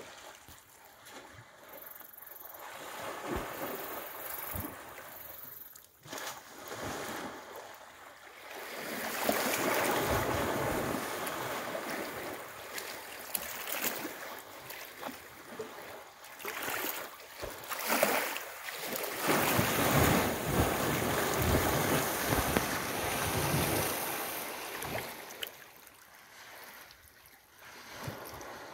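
Water sloshing and splashing as African elephants swim and surge through a waterhole, sending waves lapping toward the bank, with wind buffeting the microphone. It is louder through the middle.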